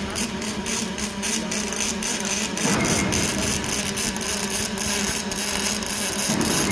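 Robotic MIG welding arc crackling and sizzling continuously over a steady machine hum, with the texture shifting about a third of the way in and again near the end.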